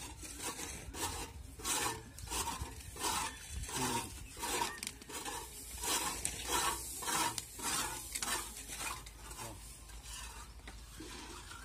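Rhythmic hand scraping on a PVC pipe, about two strokes a second, stopping near the end.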